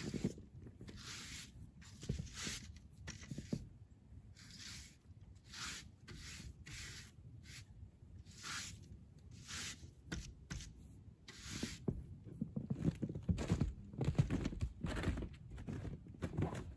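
Snow brushed off solar panels in repeated swishing strokes, roughly one a second and irregular in rhythm. Heavier low thuds join in near the end.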